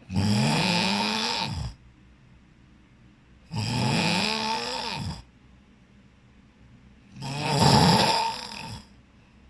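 A person snoring heavily in sleep: three long snores about three and a half seconds apart, each rising in pitch and dropping away at its end, with quiet breaths between.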